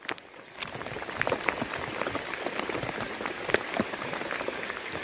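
Heavy rain falling, a steady hiss full of many small drop impacts.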